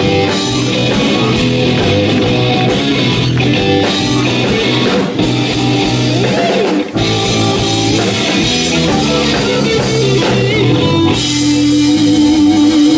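Live rock band playing, led by an electric guitar over bass and drums. About eleven seconds in, a long note is held with a slight waver.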